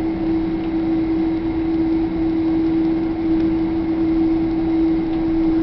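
Cabin noise inside a Boeing 767-300ER taxiing after landing: a steady hum with one constant droning tone over a whooshing noise.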